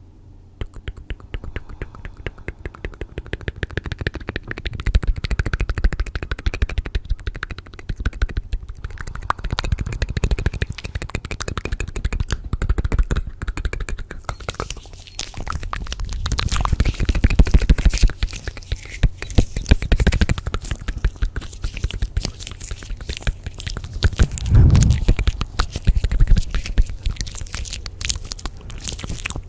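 Layered ASMR trigger sounds close to the microphone: dense, rapid crackling and clicking with scraping and low thumps underneath, starting about half a second in.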